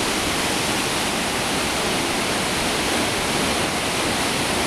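Rushing mountain river, a steady loud roar of fast water.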